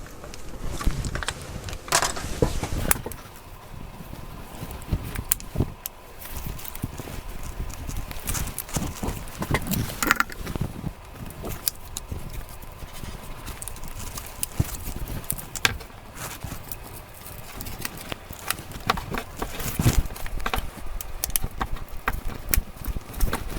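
Irregular clicks, taps and scrapes of a plastic opening tool prying at the back cover of a Samsung Galaxy S23 FE to release it.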